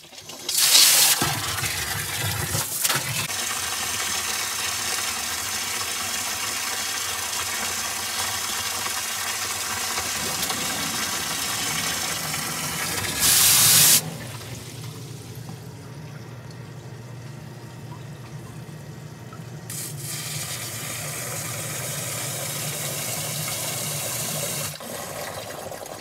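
Water splashing and churning into a sump pit as it is filled for a test, then the sump pump running with a steady low hum as it pumps the pit down, shutting off near the end.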